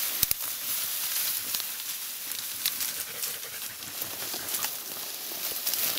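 Tall dry grass and reeds rustling and crackling close to the microphone as they are pushed through, with many small snaps.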